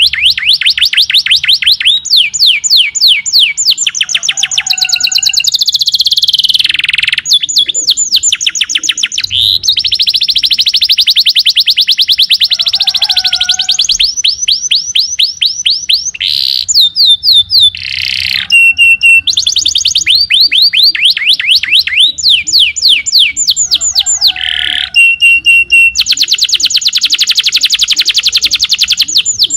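Domestic canary singing a long, unbroken song of rapid trills: fast runs of repeated falling notes that change from phrase to phrase.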